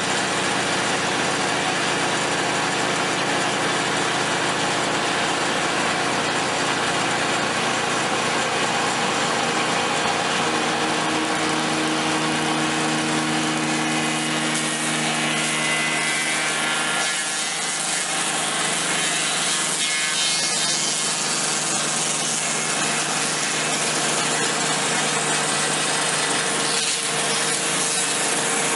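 Altai ChN280 log notching machine cutting a saddle notch into a log: its motor running steadily under load while the cutter chews through the wood.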